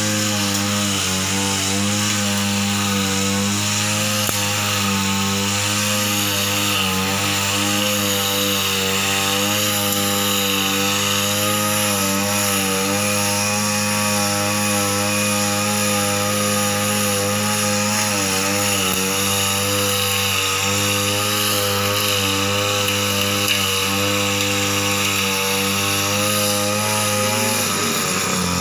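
Backpack brush cutter's small petrol engine running steadily at working speed as the cutting head sweeps through grass, its pitch wavering slightly with the load. Near the end the engine note drops as it slows.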